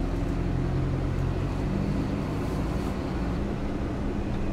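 Isuzu NPS 4x4 truck's four-cylinder turbo-diesel engine running as the truck drives slowly along a dirt track, a steady low drone that steps up a little in pitch about halfway through.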